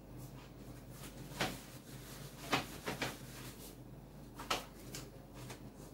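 A few separate light clicks and knocks of small objects being handled at a desk, about five in all and spread a second or so apart, over a steady low hum.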